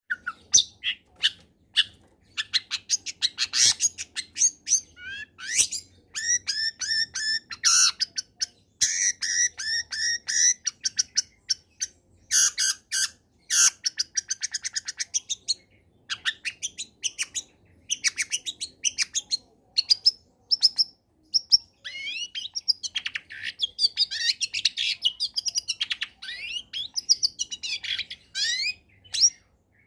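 Long-tailed shrike (cendet) singing a fast, varied song of chattering notes, quick trills and rising whistled sweeps, broken by a few short pauses.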